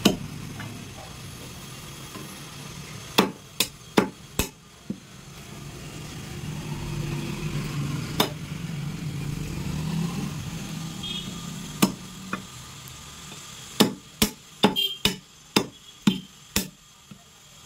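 Butcher's cleaver chopping goat head and legs: sharp chopping strikes in irregular groups, a quick run of about eight near the end, over a steady low background hum.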